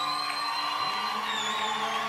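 Concert crowd cheering, with loud whistles: one long whistle in the first second and a wavering one later. A steady low hum runs beneath.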